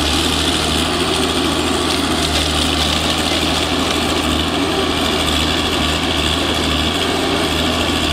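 Diesel engine of a Valmet 921 forest harvester running steadily with a low, even drone.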